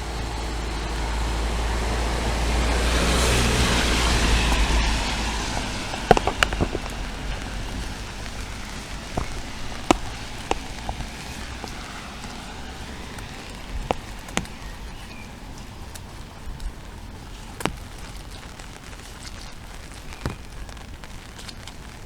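A car passes on the wet road: its tyre hiss and rumble swell and fade over the first five seconds. Then steady rain, with large drops tapping sharply every second or few.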